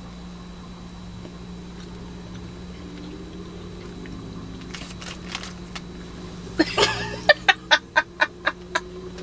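Two women laughing hard in a quick run of ha-ha pulses, about four a second, starting in the last third after several seconds of near-quiet with a low steady hum.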